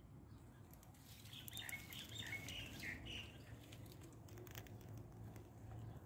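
Faint bird chirping: a quick run of short, high notes starting about a second in and lasting a couple of seconds, over a steady low rumble with scattered faint clicks.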